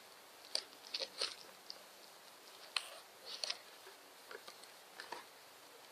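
Pocket knife cutting into a small cardboard box and its tape, giving faint, irregular crackles and clicks.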